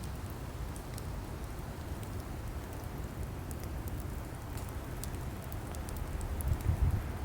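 Wood fire burning: a steady low rumble with scattered small crackles and pops from the logs, the rumble swelling near the end.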